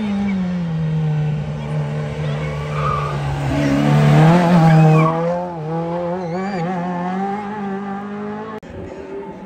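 Suzuki Swift GTI race car's twin-cam four-cylinder engine working hard through an autoslalom, its revs rising and falling as it weaves between the cones. It is loudest as the car passes about four seconds in, then fades as it pulls away.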